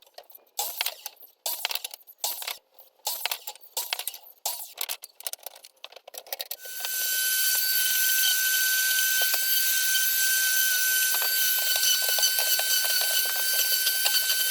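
A series of short clicks and knocks, then about halfway through a power saw's electric motor starts and runs steadily with a high whine while cutting lumber.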